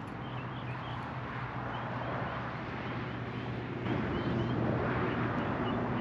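Outdoor background: a steady low engine hum under a rushing noise, with small birds chirping again and again. The hum fades about four seconds in as the rushing gets louder.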